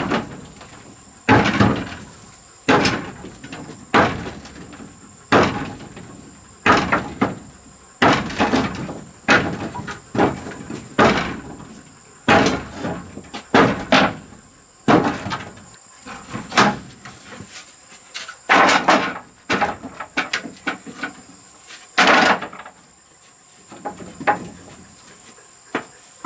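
Repeated blows of a hand tool on wood, about one a second, each with a short ring, growing weaker near the end. Crickets or other insects keep up a steady high drone underneath.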